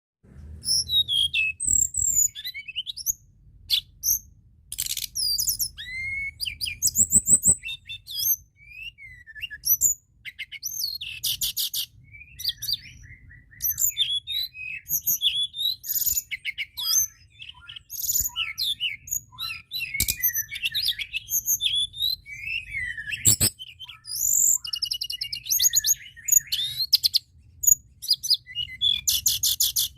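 Tledekan gunung singing continuously: a fast, varied stream of high-pitched chirps, trills and sliding whistles, with hardly a break. Two sharp clicks come through near the two-thirds mark, over a faint low background rumble.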